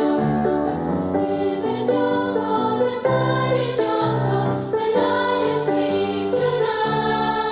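Children's and youth mariachi ensemble playing a song, with several voices singing together over the instruments.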